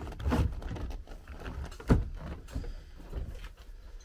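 Scraping and clicking of a car seat's metal frame and rails being handled, with one sharp metal knock about two seconds in.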